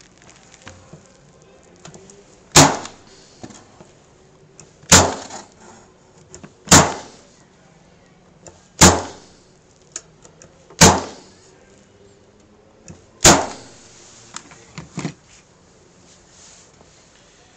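Staple gun firing six times, about two seconds apart, driving staples through wire mesh into the wooden frame of a beehive cover. Each shot is a sharp snap, and a few fainter clicks of handling the tool come between the later shots.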